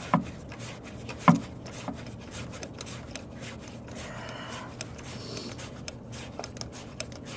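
A socket ratchet on an extension being worked down a spark-plug well: scattered small clicks and metal rubbing as the plug is turned, with one sharper knock about a second in.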